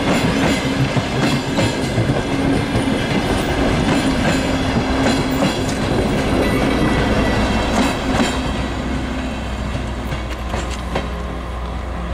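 A DR1AM diesel multiple unit passenger train rolling past close by, its wheels clacking over the rail joints over a steady rumble and low hum. The clatter thins out and the level drops a little near the end.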